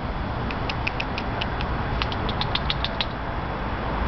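Two runs of quick, high-pitched clicks, about six a second, over steady low background noise.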